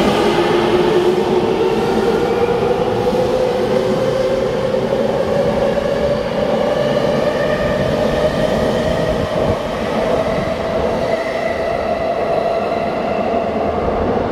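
Tokyo Waterfront Area Rapid Transit 70-000 series electric train accelerating away from an underground platform: the traction motors whine in a tone that rises steadily in pitch, over the running noise of the wheels on the rails.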